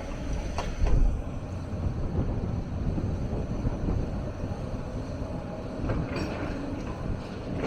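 Hyundai 290 hydraulic excavator's diesel engine running steadily under work, with metallic clanks and a heavy thump about a second in.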